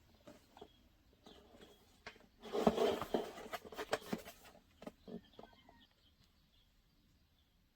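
Rustling and clicking handling noises, loudest in a burst of about two seconds near the middle, then a few scattered clicks. Faint bird chirps in the background near the end.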